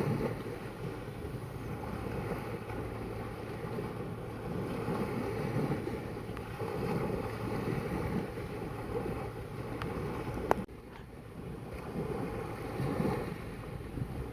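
Sea waves washing in slow surges with wind buffeting the microphone. About ten and a half seconds in there is one sharp click, and the sound drops for a moment after it.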